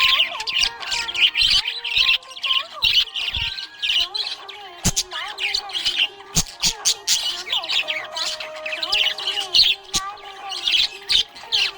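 Budgerigar chirping and squawking in a rapid, continuous stream of short high chirps.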